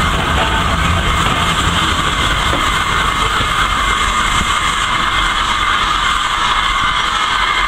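Heritage passenger train on the move: steady running noise of wheels on rail, without a break.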